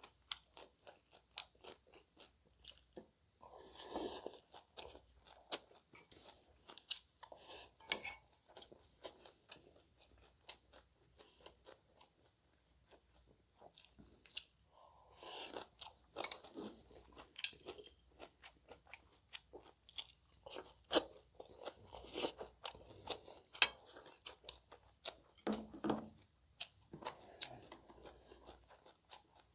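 Close-miked chewing and crunching of food, with irregular sharp clicks and wet smacks scattered through.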